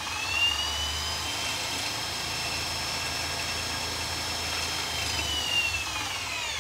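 Milwaukee 2804 M18 Fuel brushless hammer drill driver running in high gear on a disc-brake dyno: a steady motor and gearbox whine that climbs briefly at the start. Near the end the whine sags in pitch as the brake clamps down and loads the drill toward stall.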